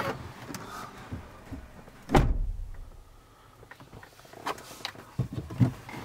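A Range Rover Evoque's door shuts with a heavy, deep thud about two seconds in, and the outside noise drops away after it. A few light clicks and knocks inside the cabin follow near the end.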